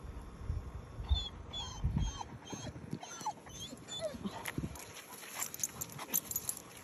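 Basset hound whimpering: a quick run of about eight short, high whines over a few seconds, with light clicks and rustling near the end.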